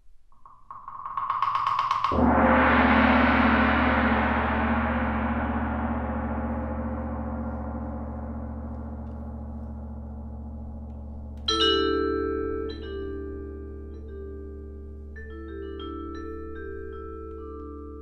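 A large gong struck hard about two seconds in, after a brief shimmering swell, its wash ringing on and slowly fading. From about halfway, slow notes struck with soft mallets on a mallet keyboard ring out long over the gong's fading hum.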